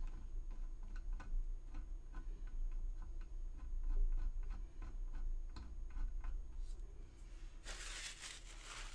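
A pointed hand tool picking and scraping along a glued seam on a resin model kit, making a run of small, light clicks a few times a second over a low steady hum. A louder rustling scrape comes in near the end.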